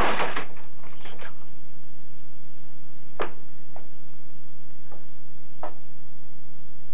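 A short scraping rattle at the start, then four sharp knocks about a second apart, the third and fourth a little weaker than the first. These are the unexplained knocking noises in an attic that are taken for rats.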